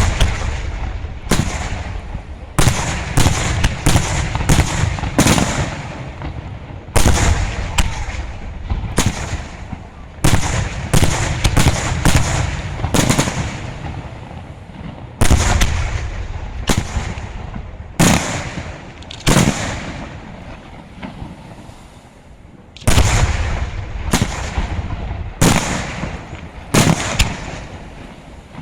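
Aerial fireworks shells bursting in a long irregular run of loud bangs, roughly one every second or so. Each bang fades out before the next.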